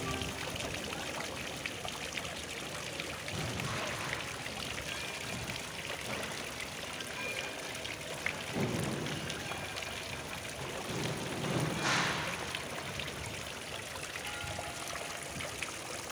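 Fountain water splashing steadily into a large granite basin.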